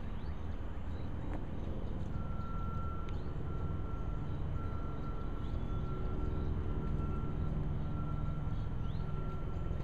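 Steady low mechanical rumble, with a steady high whine setting in about two seconds in, and a few short rising bird chirps over it.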